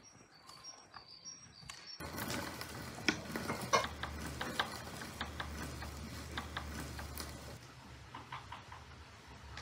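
Rapid irregular clicking and clattering, like something mechanical being worked or handled, starting abruptly about two seconds in. A bird chirps a few times before it.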